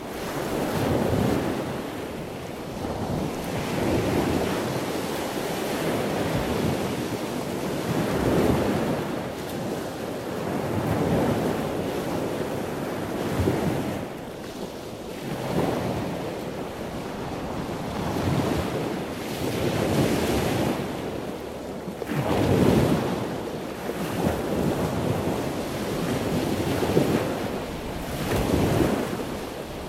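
Ocean surf washing onto a beach, swelling and falling back every two or three seconds.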